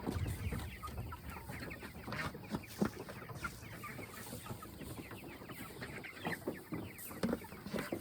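A flock of Cornish cross meat chickens clucking, many short calls overlapping.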